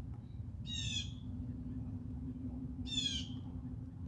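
A bird gives two short calls about two seconds apart, over a steady low hum.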